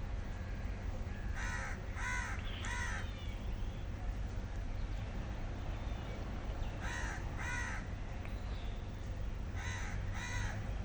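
A bird calling in three bouts: three short calls, then two, then two, each call arching up and down in pitch. Under them runs a steady low rumble.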